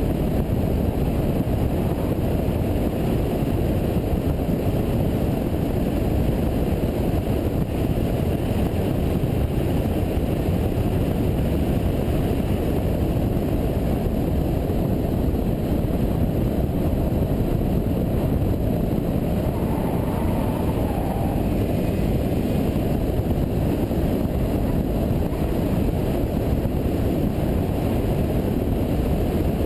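Steady low wind rumble and road noise from a car driving fast, heard through a camera mounted on the outside of the car's door, so the wind on the microphone covers the engine.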